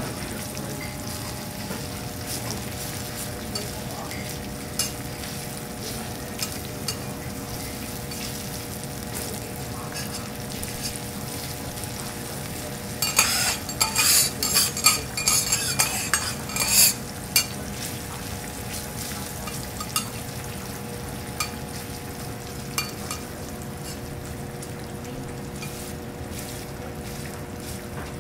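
Food sizzling on a hot teppanyaki griddle, a steady hiss, with a burst of metal utensils scraping and clinking on the steel plate about halfway through.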